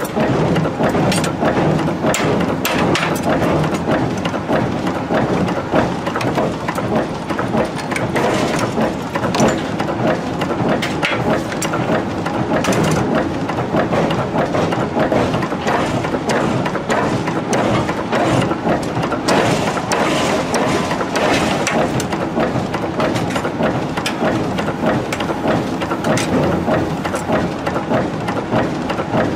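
Forging-shop machinery running, with dense, irregular metallic clatter and knocks as hot steel shovel blanks are pressed in the dies and handled with tongs.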